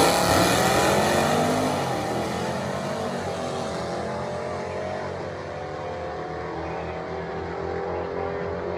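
A drag-racing car accelerating hard away down the strip. Its engine pitch climbs and drops back several times, and the sound grows steadily fainter as the car pulls away.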